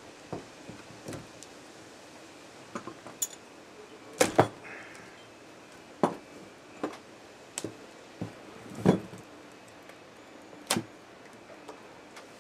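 Irregular hard knocks and clacks of plaster mold sections being pried off a wax casting and set down on a wooden workbench. The loudest are a quick double knock about four seconds in, with further single knocks about nine and eleven seconds in.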